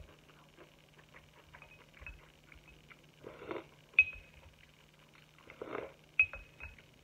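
Tableware sounds of a meal: twice a short scraping in a small ceramic bowl, each followed by a sharp ringing clink of a utensil against the dish, about four and six seconds in. Faint clicks of chewing run underneath.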